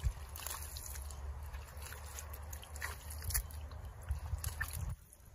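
Gloved hands digging in wet mud: faint squelching with scattered small wet clicks and pops over a low steady rumble, stopping about five seconds in.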